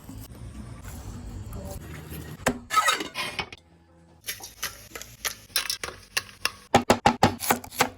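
Kitchen clatter: metal utensils knocking against pots, pans and dishes, with a quick run of sharp strikes near the end.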